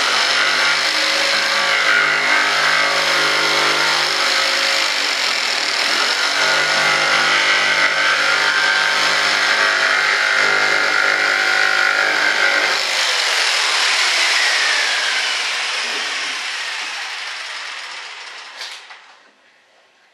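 Jigsaw cutting through cured fibreglass and resin, trimming the edge of a layup: a steady, loud motor and blade noise for about thirteen seconds. It is then switched off, and the motor winds down with falling pitch until it stops near the end.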